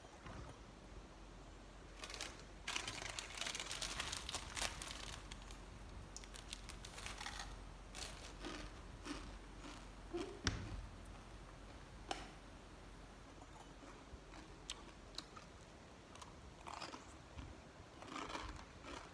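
Dry, crumbly material being handled and crushed by hand, making irregular crunching and crinkling with scattered sharp clicks. The sound is densest a couple of seconds in and again near the end.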